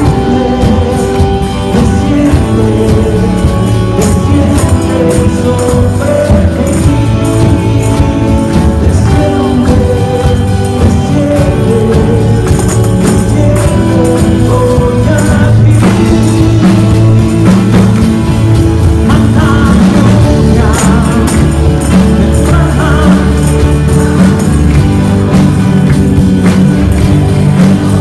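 A live band plays an upbeat worship song with drums, guitar and singing. Handheld tambourines jingle along in rhythm throughout, shaken by the dancers.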